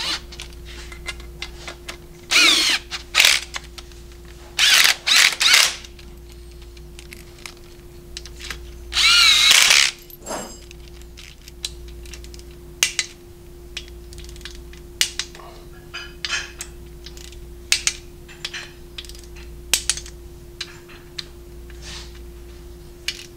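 Cordless electric ratchet run in short bursts on bolts in a Harley-Davidson Milwaukee-Eight cam chest, its motor whine rising and falling with each burst. There are several bursts in the first few seconds and one longer burst about nine seconds in. After that come scattered light clicks and taps of tools and parts being handled.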